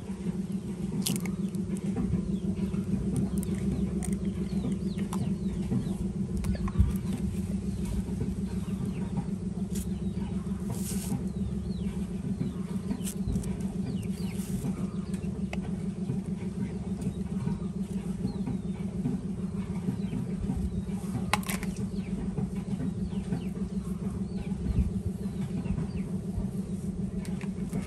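A steady low drone, like a motor running, with a few faint short clicks from hands opening an eggshell and peeling a banana with a knife.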